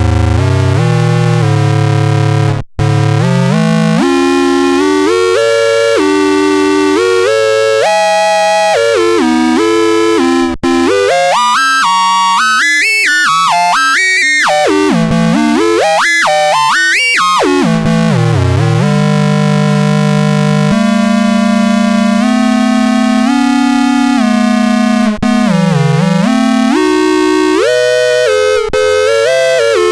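Cosmoton Duet synthesizer playing buzzy electronic tones. It moves in stepped notes and pitch glides, sweeping up and down quickly in the middle, with a few brief breaks between phrases.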